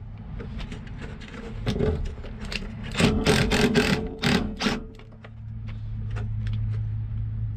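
Ratchet with a 10 mm socket clicking in quick runs while backing out rusty bolts on a fuel pump access cover, loudest and densest about three seconds in.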